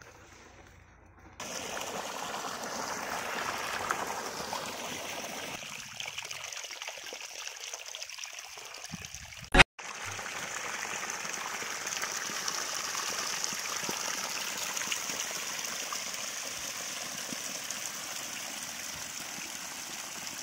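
Irrigation water flowing and splashing over soil along a field channel, a steady rushing sound. A single sharp click cuts through it just under halfway through.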